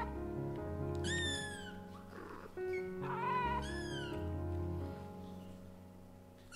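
A kitten meowing, high-pitched: one call about a second in and two more around three to four seconds in, the last falling in pitch, over background music with sustained tones.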